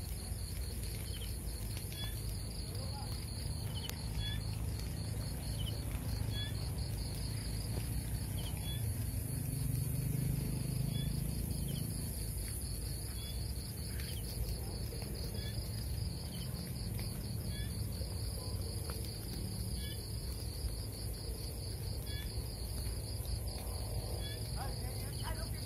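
Steady chorus of crickets and other night insects, trilling in a fast, even pulse, with a short higher chirp repeating about every two seconds. Under it is a low rumble that swells about ten seconds in.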